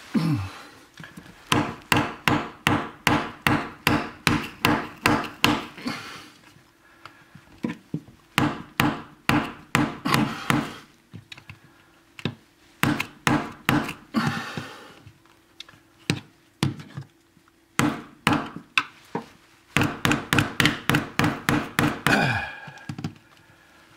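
Butt of a screwdriver handle tapping repeatedly, knocking the last piece of peel-and-stick metal tile into a tight corner. The taps come in runs of about two or three a second, with short pauses between runs.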